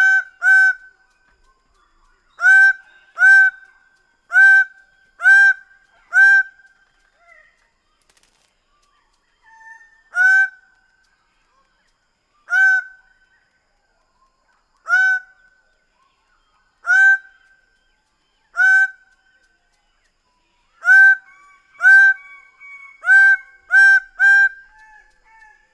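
Greater bird-of-paradise calling: loud, short calls, each with a slight downward slur, given in quick runs of several calls and, between the runs, singly about every two seconds.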